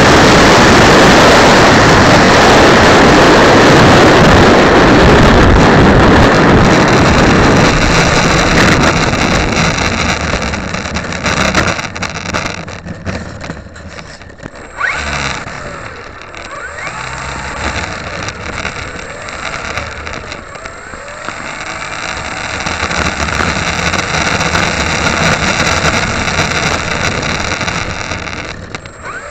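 Wind rush and the electric motor and propeller of a Dynam Pitts RC plane in flight, heard from a camera on board. A loud rushing for the first several seconds eases off about ten seconds in, leaving a quieter motor whine that rises and falls in pitch and swells again near the end.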